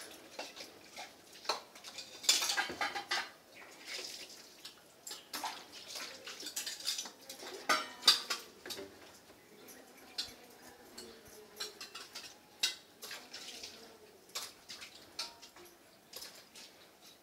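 Scattered clicks and knocks with brief clattering, heaviest about two seconds in and again around eight seconds.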